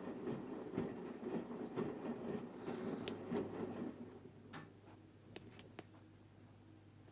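Samsung WW9000 front-loading washing machine on its rinse: wet laundry tumbling and sloshing in the drum, which stops about four seconds in, leaving a low steady hum and a few light clicks.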